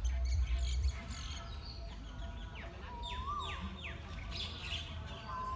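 Birds calling: a run of quick falling whistled notes, then a short rising-and-falling whistle that comes again near the end. A low rumble fills the first second.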